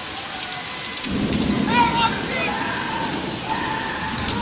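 Heavy rain pouring down. About a second in, a loud rumble of thunder swells in and keeps rolling under the rain.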